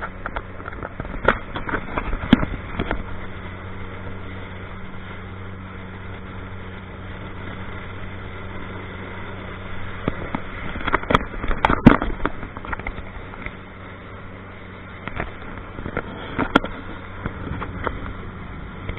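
Motorboat engine running steadily under the rush of water and wind, broken by three clusters of sharp knocks and cracks, the loudest around the middle, as the boat runs through the waves.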